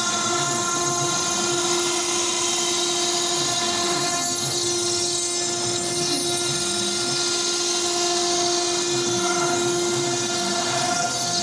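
CNC router spindle milling a stone slab: a steady high whine over a grinding hiss.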